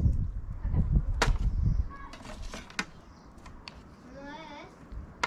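Low rumbling and handling knocks for the first two seconds, then a few sharp clicks of a knife against a plastic tray as a skinned rabbit carcass is cut. About four seconds in, a faint, wavering bleat-like call from a distant animal.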